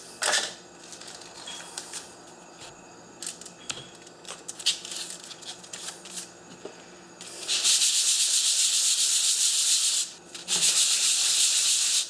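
A 3D-printed plastic part being rubbed on sandpaper laid over a flat surface plate to lap its face flat: a loud, steady, scratchy hiss that starts about halfway through, with a brief pause near the end. Before it, quiet rustles and taps as the sandpaper and tape are handled.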